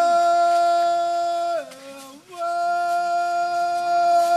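A horn sounding a long, steady held note. About one and a half seconds in it slides down to a lower note, then slides back up to the first note and holds it again.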